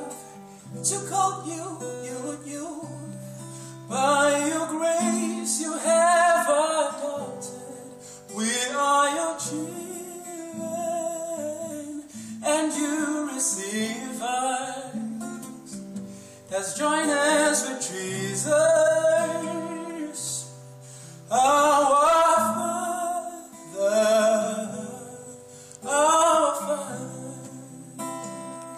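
A man singing in long phrases with vibrato, accompanied by an acoustic guitar.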